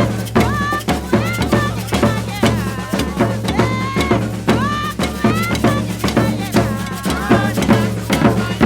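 Maracatu percussion ensemble playing: deep bass drums and snare-type drums beat a steady, dense rhythm, with a high melodic line sliding up and down over it.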